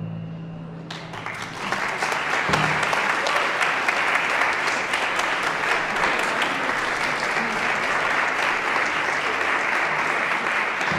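The orchestra's last low string chord dies away, and audience applause starts about a second in and holds steady.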